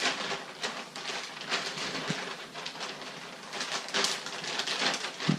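Parcel packaging rustling and crinkling in irregular bursts as it is torn open.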